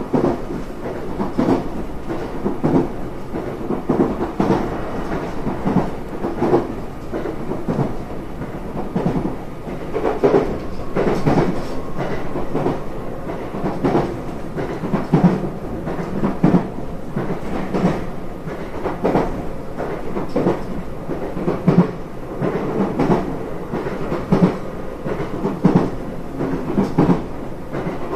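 Inside a JR West 227 series 1000 electric train running at speed: a steady rumble from the running gear, with repeated clacks as the wheels pass over rail joints.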